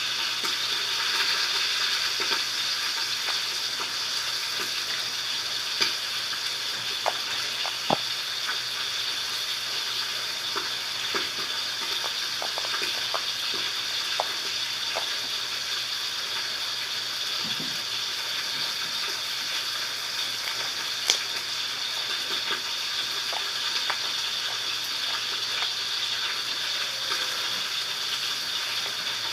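Slime being squished and pressed by hand: a steady fine crackle with scattered small pops and clicks.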